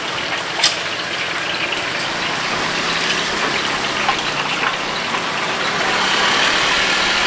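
Hot oil sizzling steadily as battered fritters deep-fry in a wok, with one short metal clink just after the start and a low steady hum joining about two seconds in.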